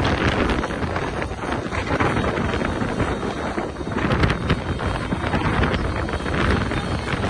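Strong gusting wind buffeting the microphone, with a rough, rumbling rush that swells and eases.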